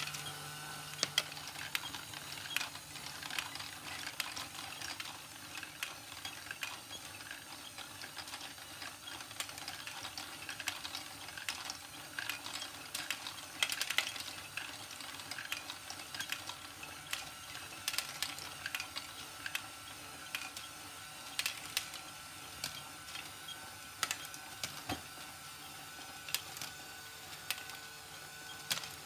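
LEGO Technic Great Ball Contraption module running: a steady motor and gear whine under many irregular, sharp plastic clicks and rattles.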